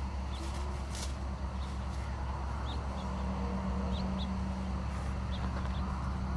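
Steady low electric hum of the blower fan that keeps a large inflatable yard figure standing, with a few faint, short bird chirps over it.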